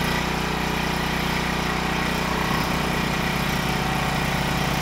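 Portable gasoline generator engine running steadily. About two and a half seconds in, a second engine sound with an even pulsing beat joins it as a small Honda inverter generator starts, leaving two generators running together.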